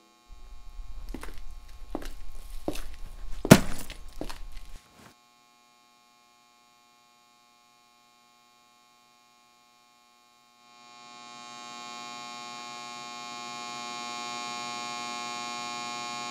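Low electrical hum with a handful of scattered knocks and clicks, the loudest about three and a half seconds in. Then near silence, and from about eleven seconds a steady ambient drone of many held tones swells in and holds.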